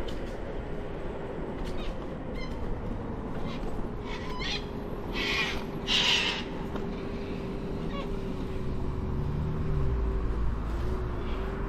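Scooter riding along a path: a steady motor whine over low rumble from wind and tyres. Two short, harsh calls about five and six seconds in.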